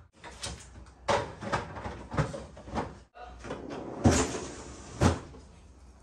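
Clunks and knocks of a Samsung Bespoke refrigerator's doors and pull-out freezer drawer being handled and opened. There is a louder thump about four seconds in and another about a second later.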